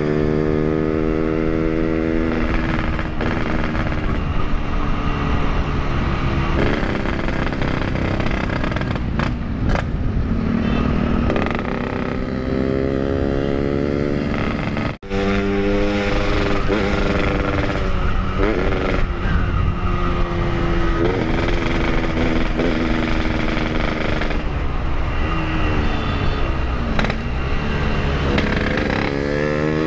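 Yamaha RX-King 135cc two-stroke motorcycle engine heard from the rider's seat, its pitch rising and falling again and again as the throttle is opened and closed on the move, with a brief cut about halfway.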